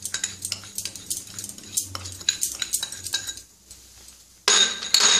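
A glass cup is knocked against a glass mixing bowl to empty flour, making a quick run of light clinks and knocks. About four and a half seconds in comes a louder, ringing clatter of glass on glass as the next glass cup is handled.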